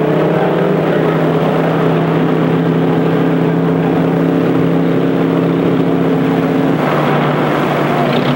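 An engine running steadily: a low, even drone that holds its pitch, thinning out about a second and a half before the end.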